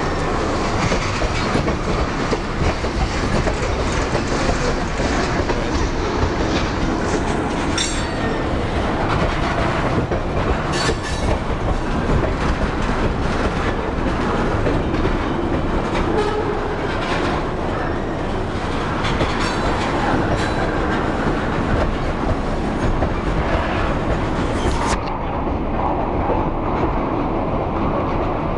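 Freight train of tank cars rolling past close by: a steady rumble with wheels clacking over rail joints, and a few sharper clanks about 8 and 11 seconds in.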